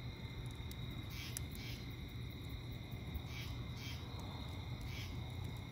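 Night insects, crickets, trilling in a steady high chorus, with a louder double chirp repeating every second or two. Under it, a wood campfire burns with a low rumble and a few sparse crackles.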